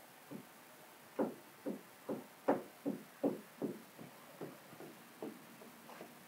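Squeegee strokes over wet paint protection film on a car's hood and fender: a quick run of short rubbing strokes, about two or three a second.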